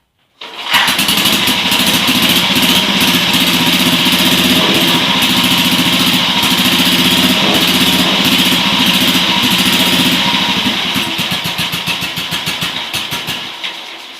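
Freshly restored BSA M20's single-cylinder side-valve engine catching at once about half a second in and running steadily. From about eleven seconds the separate firing beats slow and fade as the engine is shut off and dies away near the end.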